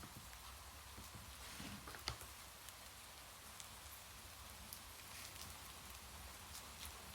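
Soft, steady rain hiss with scattered small drip clicks, and one sharper click about two seconds in.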